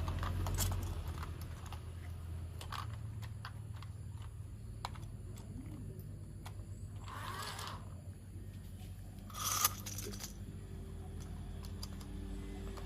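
Hands handling plastic toy-train parts and packaging: scattered light clicks and taps, with two short rustles about seven and nine and a half seconds in.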